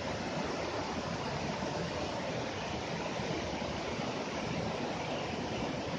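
Waterfall rushing: an even, steady noise of falling and splashing water.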